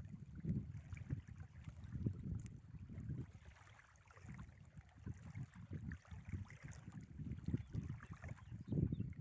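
Wind buffeting the microphone in uneven gusts, a low rough noise that eases off about four seconds in and picks up again near the end.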